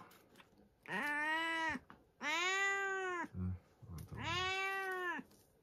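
Domestic cat meowing three times, each a long call of about a second that rises and falls in pitch.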